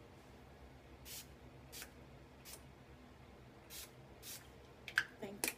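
Hand-pump spray bottle of John Frieda Frizz Ease straightening spray misting into wet hair: about five short spritzes spaced roughly half a second to a second apart, with a louder sound near the end.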